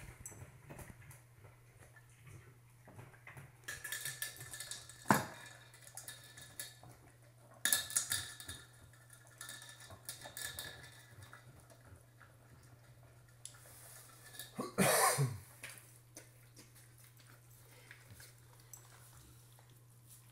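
A dog eating dry kibble from a metal bowl: steady small crunches and clicks of food and tags against the bowl. Louder clanks and scrapes of the bowl come about five seconds in, eight seconds in and fifteen seconds in.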